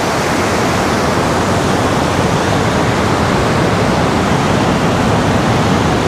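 Perunthenaruvi waterfall on the Pampa River in high flow: foaming whitewater pouring over the rocks in a loud, steady rush.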